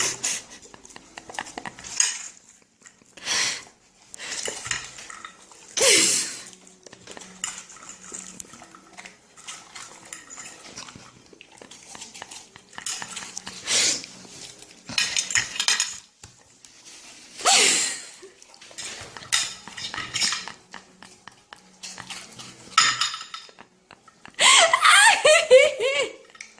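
A dog eating from a bowl, the bowl clattering and scraping in repeated irregular bursts with short pauses between.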